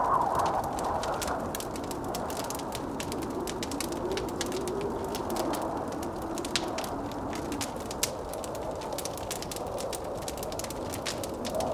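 Fireplace crackling with frequent small pops, two sharper ones a little past halfway, over howling blizzard wind that rises and falls in pitch.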